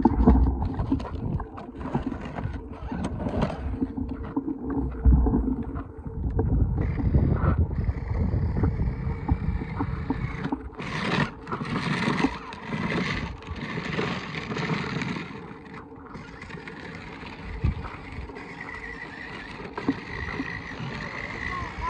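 Child's battery-powered ride-on toy motorcycle driving over loose gravel: a small electric motor whining steadily under the crunch of its plastic wheels.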